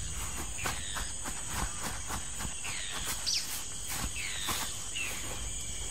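Tropical rainforest insects: a steady high-pitched buzzing drone, with short falling chirps repeating about twice a second.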